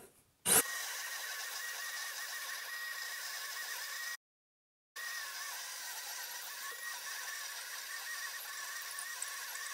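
DeWalt 12V Extreme hammer drill on speed one, boring through a wooden board with a 3-inch Milwaukee Hole Dozer hole saw. The audio runs fast with the sped-up footage, so the motor sounds as a steady, high, wavering whine. It cuts out for under a second about four seconds in.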